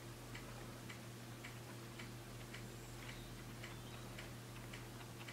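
Faint, even ticking, about two ticks a second, over a steady low electrical hum.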